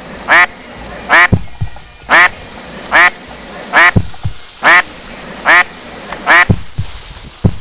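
A duck quacking: eight short, loud quacks at an even pace of roughly one a second, with a few soft low thumps between them.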